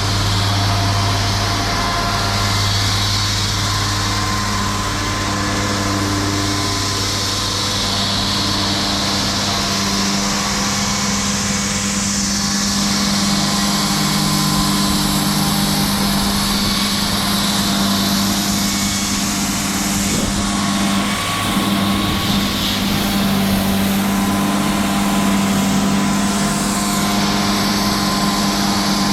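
Engine of a big diamond-bladed concrete saw running steadily, with a high hiss over it that rises and falls, as it cuts through a concrete curb.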